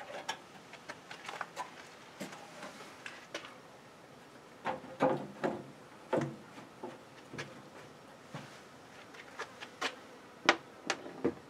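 Sheet-metal front cover of a tankless water heater knocking and clicking against the unit's casing as it is lifted into place and fitted. The knocks come as a string of sharp separate hits, loudest about five seconds in and again near the end.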